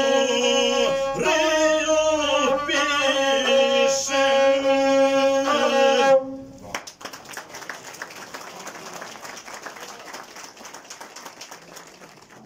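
Gusle, the single-string bowed folk fiddle, playing a held, trilling melody that cuts off abruptly about six seconds in. After it comes a quieter, even murmur of a crowd.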